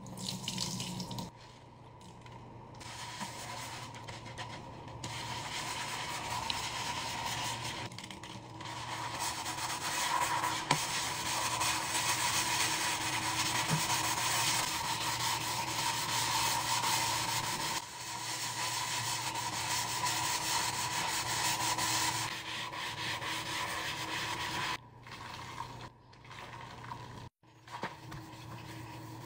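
A mesh scrub sponge scouring a stainless steel sink with cleaning powder and soap, a continuous gritty rubbing that pauses briefly near the start and again near the end.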